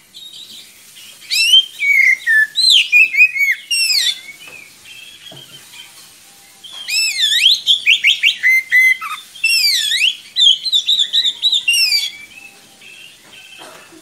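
Oriental magpie-robin singing in two long runs of rapid, swooping whistles and trills: one about a second in lasting about three seconds, and a longer one from about seven to twelve seconds in.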